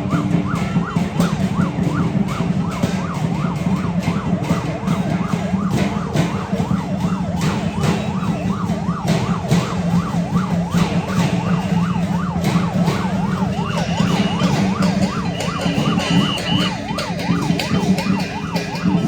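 A fast yelping siren, its pitch sweeping up and down about two to three times a second, over the steady beating of lion dance drums and cymbals.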